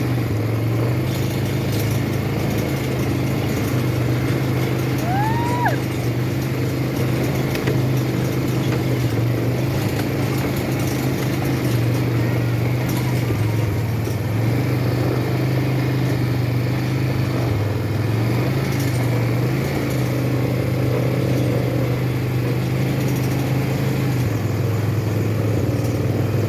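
ATV engine running steadily, its pitch stepping slightly up and down as the throttle changes.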